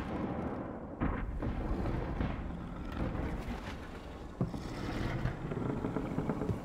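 Low, dense rumbling film sound design, with a few sharp knocks scattered through it.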